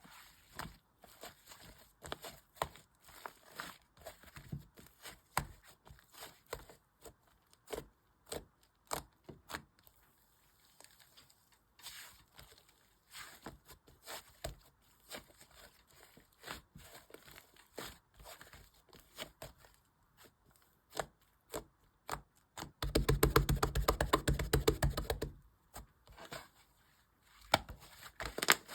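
Sky-blue slime being squeezed and poked by hand, making scattered sticky clicks and pops. About two-thirds of the way through comes a louder run of rapid popping lasting a couple of seconds.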